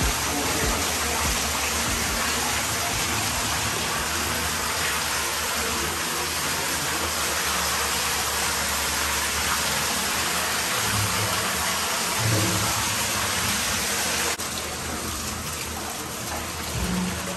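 Steady rush of flowing river water, a little quieter after a break about 14 seconds in.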